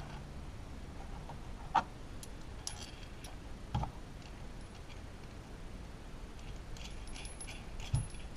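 Small metal parts clinking as a steel washer and nut go onto a threaded rod beside an aluminium bearing race installer: three short sharp knocks, with light jingling between them and again near the end.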